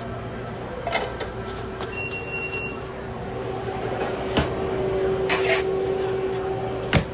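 Steady hum of a TurboChef speed oven's fan, getting louder toward the end, with a few sharp knocks of metal on metal and one loud clunk at the oven door near the end.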